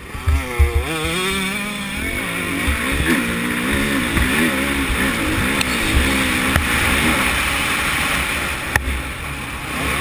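Motocross bike's engine heard from a camera on the bike, revving hard and dropping back again and again as it races along the track, with wind buffeting the microphone.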